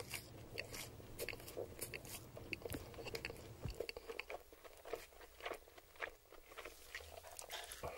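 Close-miked chewing of crispy fried chicken nugget: irregular crunches and short mouth clicks, several a second.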